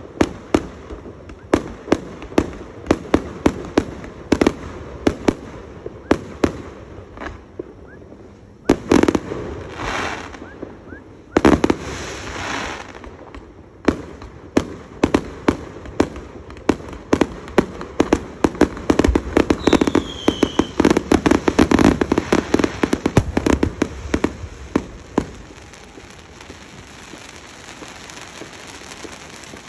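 Fireworks display: a rapid string of bangs from bursting aerial shells, with two longer rushing bursts about nine and twelve seconds in and a brief falling whistle about twenty seconds in. Over the last few seconds the bangs thin out into a steady crackle.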